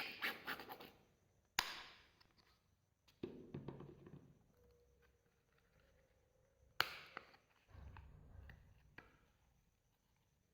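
Soft clay slime being squished, stretched and pressed by hand. It makes quiet sticky crackles and squelches, with two sharp clicking pops.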